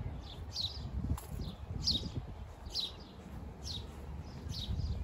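A songbird calling over and over: a short, high, falling note repeated about once a second. Underneath runs an uneven low rumble.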